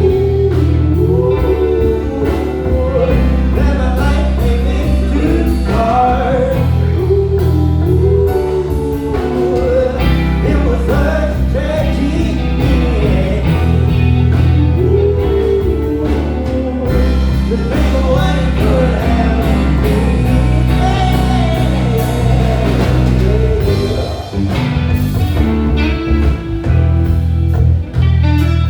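Live band of keys, bass and drums playing a slow soul-blues song, with a bending lead melody line over a heavy bass. Near the end the band thins out to a few sharp drum hits.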